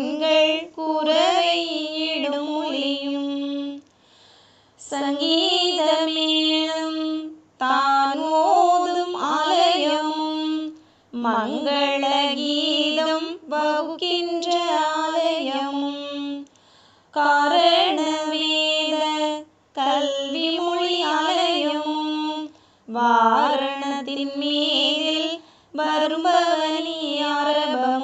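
A solo female voice sings a Tamil devotional song without accompaniment, in phrases of two to three seconds separated by brief pauses.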